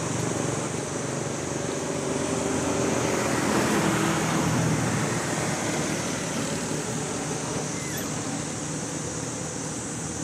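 Steady outdoor background noise with a constant high hiss. It grows louder for a couple of seconds around the middle, then eases off again.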